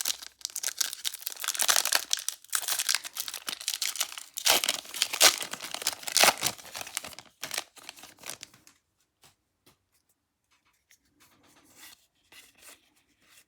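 Foil Pokémon booster pack wrapper crinkling and being torn open, a dense crackly rustling for about nine seconds that then stops, leaving only a few faint rustles.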